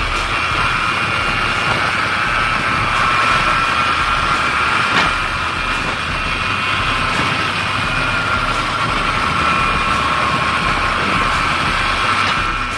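Motorbike engine running steadily at cruising speed, heard from the rider's seat with wind buffeting the microphone. A single brief knock sounds about five seconds in.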